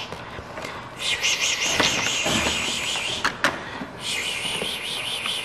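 Electronic running-water sound effect from the toy sink faucet of a Barbie ambulance playset, played through its small speaker: a pulsing, rippling hiss that starts about a second in, stops, and starts again about four seconds in, with a couple of sharp plastic clicks between.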